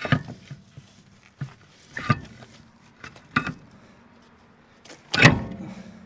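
A handful of separate metallic clunks and scrapes as a heavy steel wheel and tire is worked back onto the hub studs. The loudest knock comes about five seconds in.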